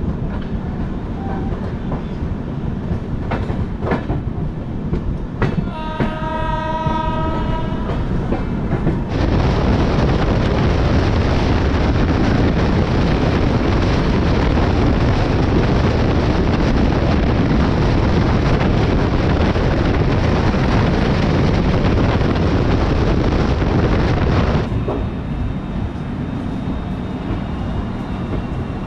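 Indian Railways express train heard from the doorway of its coach. A train horn sounds for about two seconds near the start. Then comes a loud, steady rumble and rattle of the train running at speed on the track, which cuts off about three-quarters of the way through to a quieter rolling sound.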